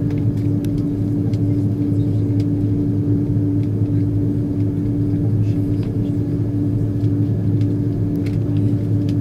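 Airbus A330-200 airliner cabin noise while taxiing: the engines running at low power give a steady drone with a constant low hum.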